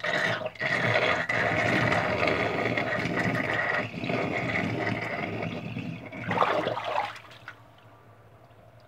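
Water running and splashing in a steady rush, with a brief louder surge just before it dies away about seven seconds in.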